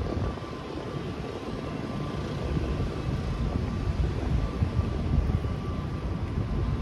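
Steady low rumble of city background noise, with a faint steady whine above it.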